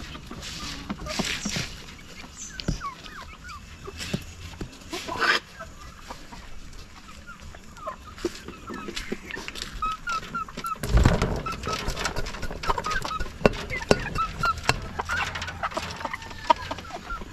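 Chickens clucking, with scattered clicks and knocks, and a loud knock or clatter a little past halfway.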